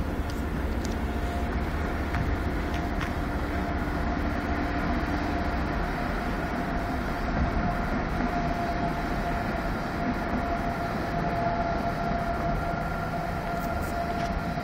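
Electric train moving through a station's track area: a steady rumble with a thin, steady whine above it.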